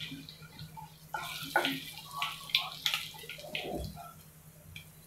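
Cumin seeds sizzling and crackling in hot oil as a wooden spoon stirs them in the pan, with scattered sharp pops, thickest in the middle.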